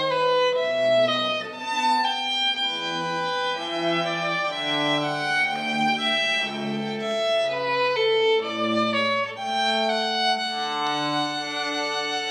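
Instrumental closing music with bowed strings: a melody of held notes moving step by step over a lower bass line.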